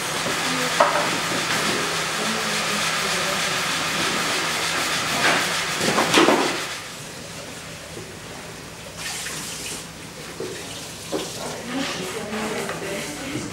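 A steady rushing hiss, like running water, that drops away about seven seconds in, leaving quieter room sound with a few light knocks.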